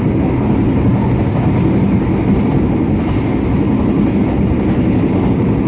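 Steady rumble of a moving passenger train, heard from inside one of the KA 80 Bangunkarta's 1996-built coaches as it runs along the rails.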